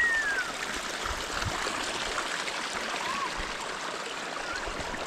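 Steady rush of running water from a hillside spring running full after days of rain, with a short falling whistle at the start and a fainter one about three seconds in.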